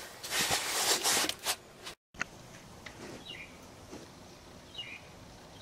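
Hands rustling and scraping against parts in an engine bay, loud for about a second and a half, then a brief dropout; afterwards a faint background with two short high chirps.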